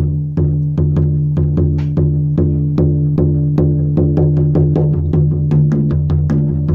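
Shamanic drum beaten in a steady pulse of deep, ringing strokes, about two and a half beats a second, quickening to about five a second some four seconds in.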